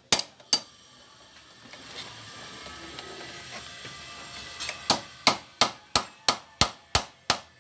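Hammer tapping on a scooter's steering-stem nut to ease it a little looser. Two strikes, a pause of about four seconds, then a steady run of strikes about three a second.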